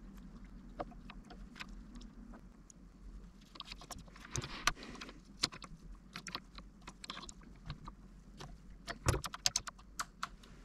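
Small clicks, taps and scrapes from fingers and a small flat-blade screwdriver working a miniature toggle switch and its wire connector inside an opened RC transmitter case, with a quick flurry of sharp clicks about nine seconds in.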